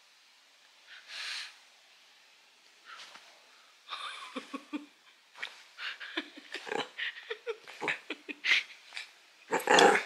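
Small white dog making short grumbling, whining play noises at close range, in a run of quick bursts starting about four seconds in, with the loudest burst near the end. A woman laughs along.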